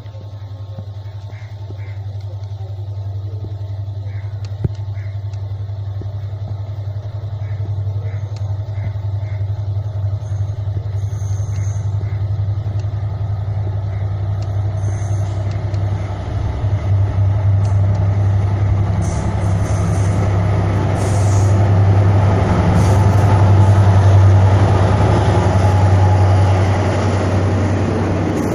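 Class M11 diesel-electric locomotive approaching at track level, its engine a steady low drone that grows steadily louder. In the second half it passes close by and the rumble of wheels on rail builds until the train is rolling past.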